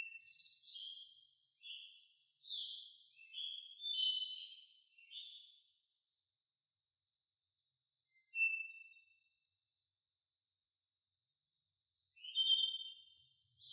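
Steady high-pitched chirping of crickets. Short whistled phrases sit over it, several in the first five seconds, one near the middle and a louder one near the end.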